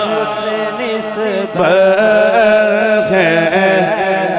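A man singing a naat, an Urdu devotional song, solo into a microphone, drawing out long wavering notes with no words, over a steady low drone.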